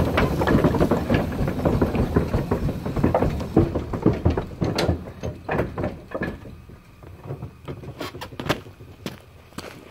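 Sawyer-Massey steam traction engine moving away, a dense mechanical clatter that fades steadily over several seconds, leaving a few separate clicks near the end.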